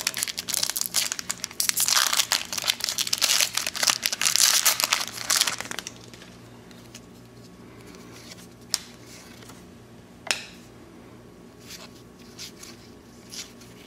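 A shiny foil trading-card pack wrapper being torn open and crinkled by hand for about six seconds, then quieter, with a few light clicks as the baseball cards are handled.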